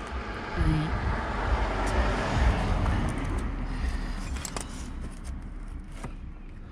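A passing car: a broad road-noise rumble that swells for about two seconds and then slowly fades. A few light clicks come near the end.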